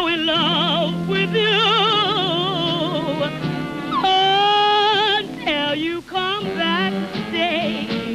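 A woman singing long, held notes with a wide, wavering vibrato, then shorter sliding notes, over a band's sustained backing chords.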